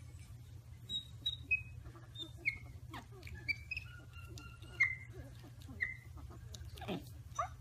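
Baby monkeys giving short, high-pitched chirps and squeaks, about a dozen scattered through, over a low steady hum.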